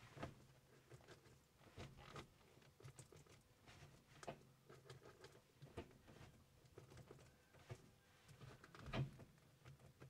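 Faint, irregular clicks and light knocks from a Maruti 800 gear shift lever mechanism being worked back and forth to show its play, with one louder knock about nine seconds in.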